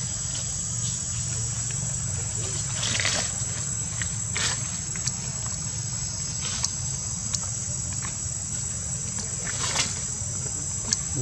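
Insects droning in a steady high-pitched chorus over a steady low rumble, with a few short clicks scattered through.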